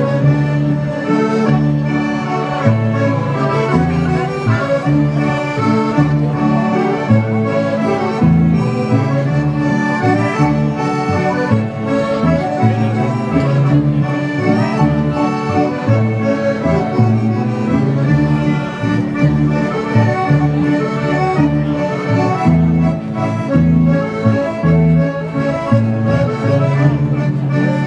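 Traditional folk-dance music led by an accordion, playing continuously with a steady rhythmic bass.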